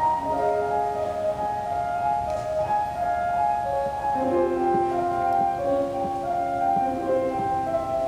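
Piano playing a slow introduction of held notes, with lower notes joining about four seconds in.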